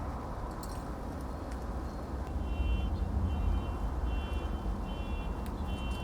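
Vehicle reversing alarm beeping steadily, about one beep a second, starting about two seconds in, over a low engine rumble that grows louder as the beeping begins.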